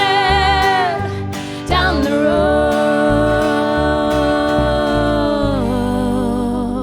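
Country band ending a song: a long held final sung note over guitar and bass, the music ringing out and fading near the end.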